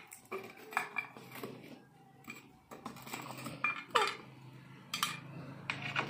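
Small stainless-steel bowl clinking on a tabletop as it is handled and the parrots get at it: a string of sharp metallic clinks, irregularly spaced, each with a short ring.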